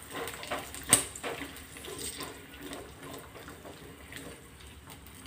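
Garlic cloves sizzling in hot oil in a kadhai, with a spatula scraping and tapping against the pan as they are stirred. Several short clicks fall in the first few seconds, the sharpest about a second in; the sizzle carries on after the stirring stops.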